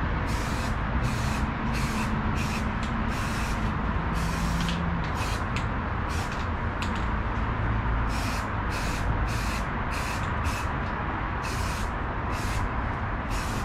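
Primer being sprayed onto small test panels in short hissing bursts, about two a second with a brief pause midway, over a steady background rush.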